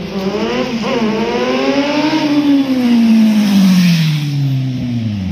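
A sport motorcycle accelerating past close by. Its engine note climbs, breaks briefly about a second in as it shifts up, then falls steadily in pitch as the bike goes by.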